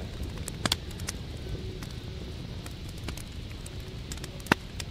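Small wood fire of dry sticks crackling, with scattered sharp pops, the loudest about half a second in and again near the end, over a steady low rumble.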